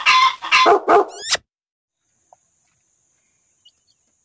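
Intro sound effects of a dog barking several times, ending about a second and a half in with a quick rising sweep, followed by near silence.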